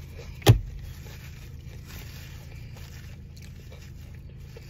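A single sharp knock about half a second in, then a low steady hum inside a car with faint rustling and chewing as a sandwich is eaten from its paper wrapper.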